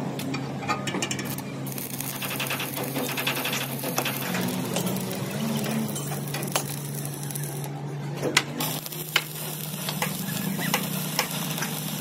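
Stick (shielded metal arc) welding on steel: the arc crackles and sizzles steadily, with a few sharp pops around the middle and a steady low hum underneath.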